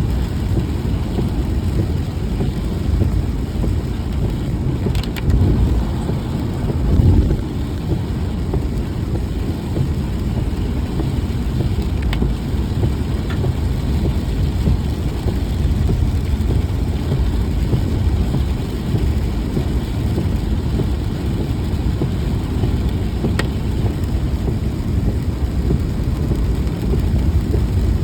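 A car driving in the rain: a steady low rumble of engine and road noise, with a few faint clicks.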